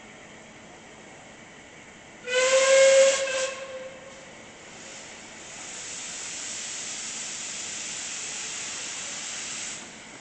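Steam locomotive whistle sounding one short blast about two seconds in, followed a couple of seconds later by a steady hiss of escaping steam that cuts off sharply near the end.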